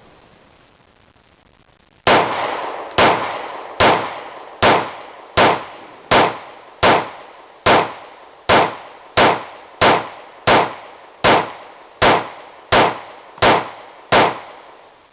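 Glock 19C compensated 9mm pistol firing about seventeen shots at a steady, unhurried pace, a bit under a second apart, each with a short ringing tail.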